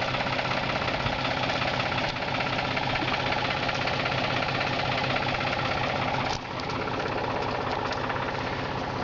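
An engine idling steadily, its level dropping slightly a little over six seconds in.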